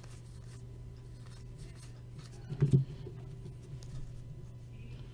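Trading cards being handled and flipped through by hand, with faint scraping and ticking over a steady low hum. A louder knock-and-rustle comes a little under three seconds in.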